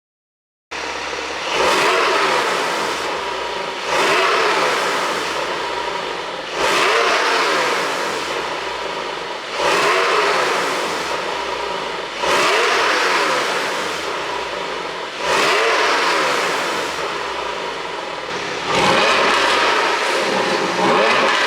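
Porsche 718 Boxster GTS 4.0's naturally aspirated flat-six, on an ECU tune made for exhaust pops and crackles, starting up about a second in and then revved again and again, about every two to three seconds, the revs falling away after each blip.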